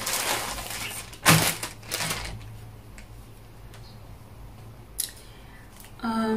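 Rustling and handling of packaging, with a sharp, loud rustle about a second in and a fainter one shortly after, then a brief click near the end followed by a short hum of a woman's voice.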